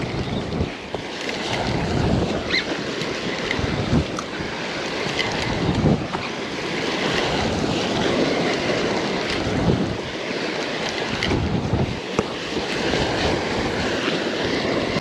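Waves surging and splashing against the stone blocks of a rock jetty, with wind buffeting the microphone.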